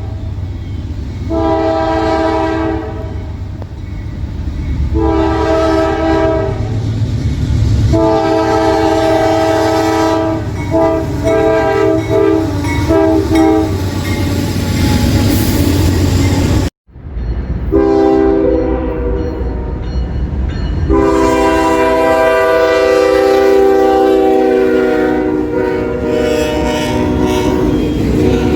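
Train air horn sounding a chord of several notes over the rumble of a moving train, in a series of long blasts with the last one broken by short gaps. After an abrupt cut a second train horn holds one long chord for about ten seconds.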